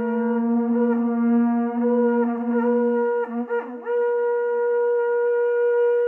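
Conch shell trumpet blown with a steady, horn-like note, broken several times by short downward slides in pitch, then jumping up an octave about four seconds in and holding the higher note.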